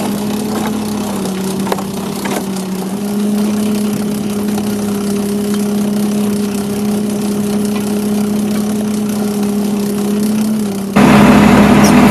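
Fishing boat's engine and hydraulic net hauler running with a steady hum while the net is hauled aboard. The pitch shifts slightly twice early on. About eleven seconds in, the sound suddenly becomes much louder and fuller.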